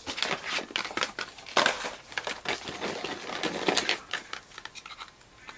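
Packing material crinkling and rustling as hands dig through a cardboard shipping box and pull items out, in irregular scrunches that die down near the end.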